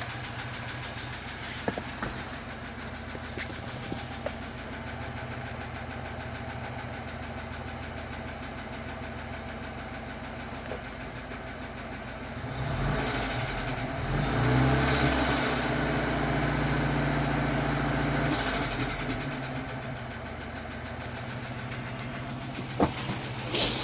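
Moskvich UZAM-412 four-cylinder engine running with a knock. It idles, is raised to a higher speed for about six seconds midway, then drops back to idle. A couple of sharp clicks come near the end.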